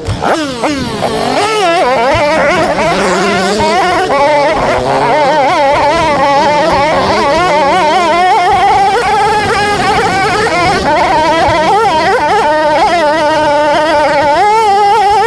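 Dirt bike engine revving hard under load, its pitch rising and falling constantly as the throttle is worked. There is a steep drop in revs in the first second.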